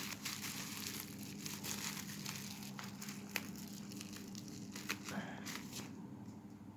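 Bubble wrap and plastic packaging crinkling and crackling in the hands as it is unwrapped, with many small scattered clicks.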